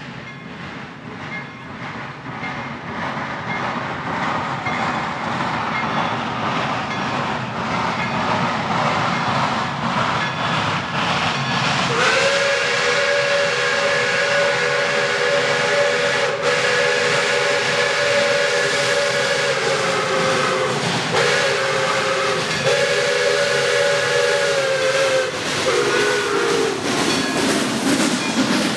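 Pere Marquette No. 1225, a 2-8-4 Berkshire steam locomotive, approaching under steam, its exhaust beats growing steadily louder. About 12 s in its whistle sounds several notes together in one long blast of about eight seconds, then three shorter blasts. The engine is passing close by near the end.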